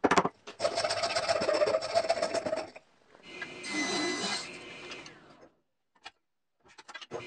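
A small file scrapes in rapid strokes in a slot of a plywood plate, beveling its sides. About three seconds in, a table saw briefly cuts a small piece of wood with a steady whine. It stops after about two seconds.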